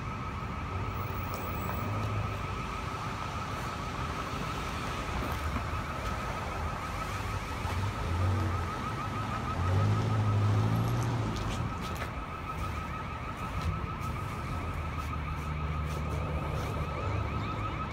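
An electronic alarm sounding without a break: one high tone pulsing rapidly and evenly. Low rumbles underneath are loudest around ten seconds in.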